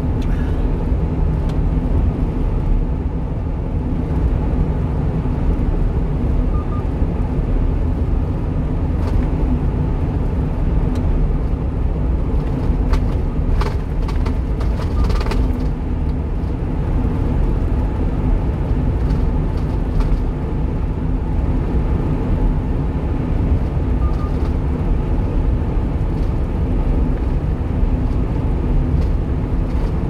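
Steady engine and tyre noise of a 1-ton truck cruising at highway speed, heard from inside the cab, with a few brief clicks about halfway through.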